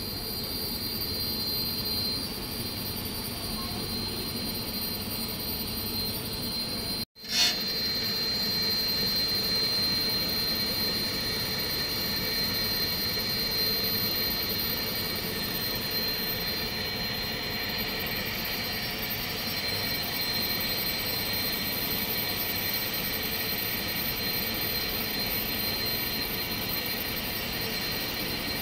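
Automatic scallop lace cutting machine running steadily as it trims the scalloped edge of eyelet lace: a continuous motor hum with a high whine. The sound cuts out for an instant about seven seconds in and comes back with a short pop.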